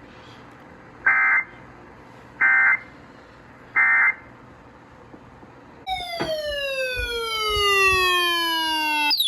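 Emergency Alert System end-of-message data bursts: three identical short buzzy two-tone chirps about a second and a half apart. About six seconds in, a loud tone with many overtones starts and glides steadily downward for about three seconds, then cuts off.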